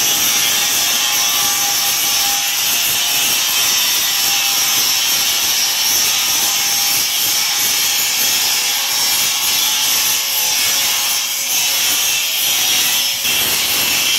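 Handheld angle grinder with an abrasive disc running against stainless steel square tubing, grinding the welded joints of a railing frame: a steady high-pitched whine and hiss, dipping briefly a couple of times near the end.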